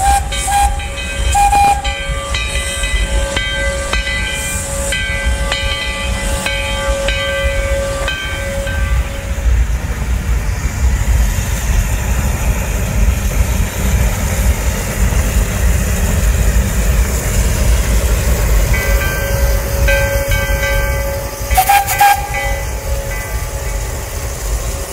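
1882 Baldwin narrow-gauge oil-fired steam locomotive moving slowly, with a steady whistle-like tone and hiss over a low rumble. Regular beats come about one and a half times a second; they and the tone fade in the middle and return near the end.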